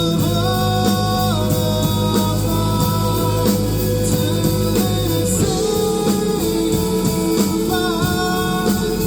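A live rock band playing a song: drum kit, guitars and a held, sung melody line over a steady beat.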